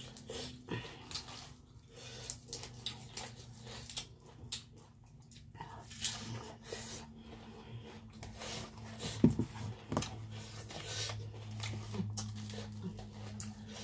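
Close-up eating sounds: fresh lettuce and herbs torn by hand, then chewed, in many short irregular clicks and crunches over a steady low hum. One louder, sharper click comes about nine seconds in.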